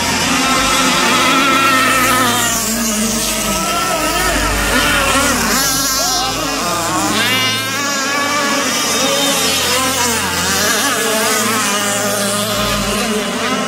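Several radio-controlled racing powerboats running together, their motors making a high whine that rises and falls as the boats speed up, turn and pass.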